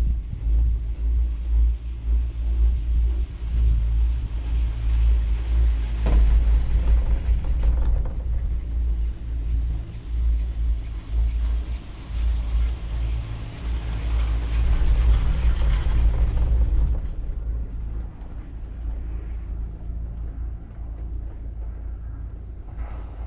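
Wind buffeting the microphone on a moving chairlift, a gusting low rumble with a faint steady hum beneath it. The wind eases off about two-thirds of the way through.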